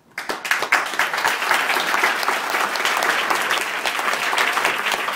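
An audience applauding; the clapping starts abruptly a moment in and carries on steadily.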